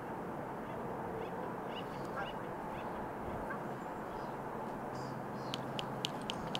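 Outdoor ambience: a steady background rush with short bird calls, then a quick run of sharp, evenly spaced clicking calls near the end, with a low steady hum under it.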